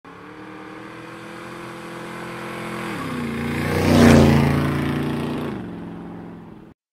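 Motorcycle engine passing by as an intro sound effect. It grows louder, is loudest about four seconds in, then fades. The engine note drops in pitch twice, and the sound cuts off just before the end.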